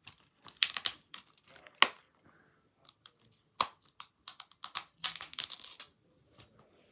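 Fingernails picking and peeling at a security sticker on a plastic DVD case: irregular clicks and scratchy tearing sounds, busiest about five seconds in.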